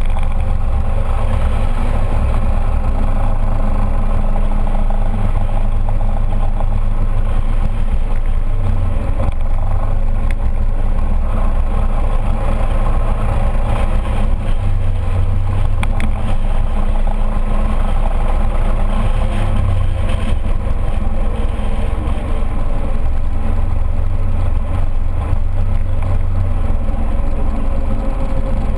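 Scooter riding at steady road speed, heard from a camera mounted on it: a steady engine drone under heavy, wavering wind rumble.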